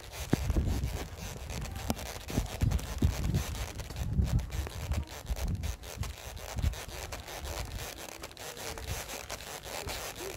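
Handling noise from a handheld camera carried while walking: rubbing and scraping on the microphone, with irregular low thumps.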